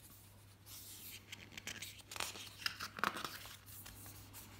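Glossy paper pages of a booklet being turned by hand: a run of short rustles and crinkles, loudest a little after two and three seconds in.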